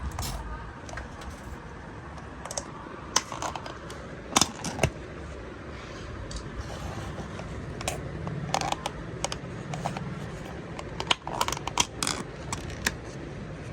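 Kitchen utensils clinking and knocking against cookware: irregular sharp clicks, loudest around four and a half seconds in and again in a cluster near eleven to twelve seconds in, over a steady low hiss.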